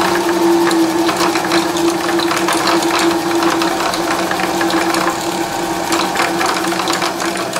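Singer Fashion Mate 360 sewing machine's motor running steadily while it winds a bobbin on the bobbin winder: a constant hum with a busy mechanical rattle over it.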